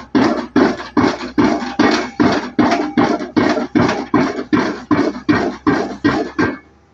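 Hydraulic impact hammer of a Junttan PM 23 pile driving rig striking a pile, a steady train of sharp blows at about three a second that stops about six and a half seconds in.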